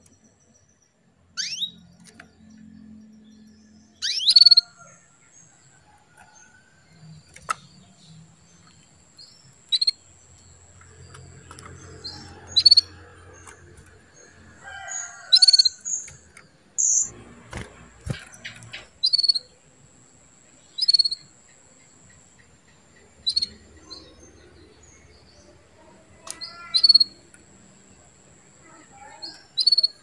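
Female canary chirping: short, sharp high call notes, about a dozen, one every one to three seconds. These are the calls of a hen canary that keepers use to rouse male canaries into breeding condition and song.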